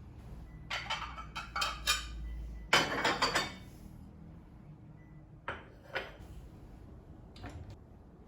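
Dishes and cutlery being handled: a quick run of clinks and clatters, busiest about three seconds in, then a few single knocks.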